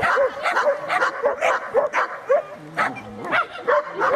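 A dog barking over and over in short, high, yelping barks, about three a second without a break.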